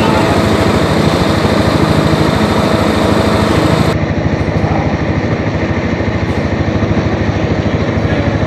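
Riding lawn mower engine running steadily with a fast, even firing pulse. About four seconds in the sound turns duller and slightly quieter all at once.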